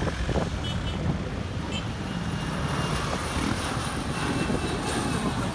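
Jet airliner engines giving a steady low rumble, with a faint high steady whine above it.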